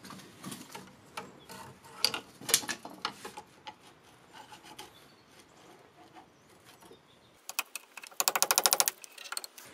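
Wire brush scrubbing rust off the brake line fitting and banjo bolt at the rear caliper: scattered scraping strokes, then a quick run of fast, even strokes near the end.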